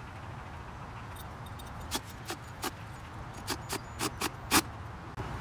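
About eight sharp clicks and taps of tools and screws on the pressure washer's plastic parts during assembly, starting about two seconds in and loudest near the end, over a steady low hum.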